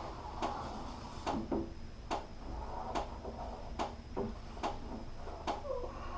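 Caulking gun trigger clicking steadily, about one click a little under every second, as silicone caulk is squeezed out in a bead, with faint handling noise between the clicks.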